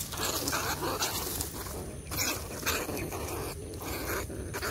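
Footsteps in rubber boots swishing and rustling through tall grass, in a run of uneven noisy brushes.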